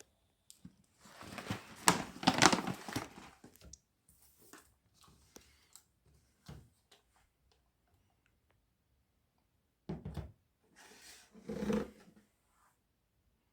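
Close handling noises: a few seconds of rustling or rubbing with small clicks, then two dull thunks near the end.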